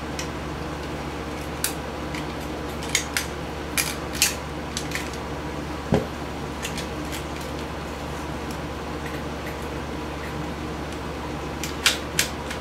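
Small sharp metallic clicks and taps from needle-nose pliers and handled metal parts of a vintage video camera's chassis, scattered through, with one louder knock about six seconds in, over a steady background hum.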